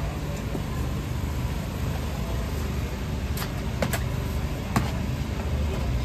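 Steady low engine rumble, with a few sharp clicks or knocks from about three and a half seconds in.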